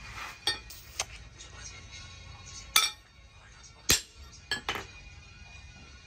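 Hammer striking an axe head on a steel stake anvil: about six sharp metallic clinks at uneven intervals, the loudest near the middle. Background music plays faintly underneath.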